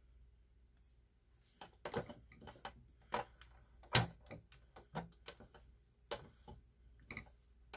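Irregular clicks and taps from an opened sewing machine being handled, its handwheel and gear train turned by hand. The clicking starts about a second and a half in, with the loudest click about four seconds in.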